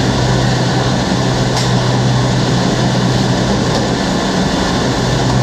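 Ship's engine room with diesel generators running: a loud, unbroken mechanical drone with a strong steady low hum under a dense roar of noise.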